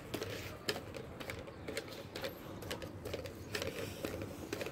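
Kite string being wound onto a hand-held spool (latai), the reel and string making irregular light clicks and rattles.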